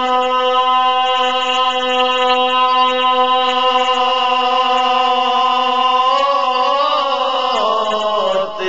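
A male voice singing a naat, holding one long steady note for about six seconds, then ornamenting it with wavering, bending pitch before a brief break near the end.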